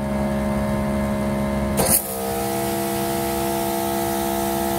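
Greenworks Pro electric pressure washer running with a steady hum while held at about 2500 PSI. About two seconds in, the gun's trigger is pulled with a short sharp burst. The pump's hum then changes pitch under load, over a steady hiss of water spraying from the turbo nozzle at a little under 1000 PSI.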